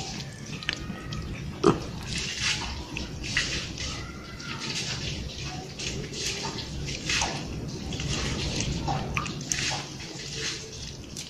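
Cats licking creamy treat paste from a squeeze tube: quick, irregular wet smacks and clicks of tongues, with one sharper click about two seconds in.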